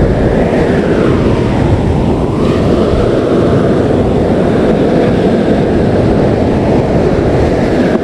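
Strong wind buffeting the microphone in a steady, loud rumble, with surf on the shore behind it.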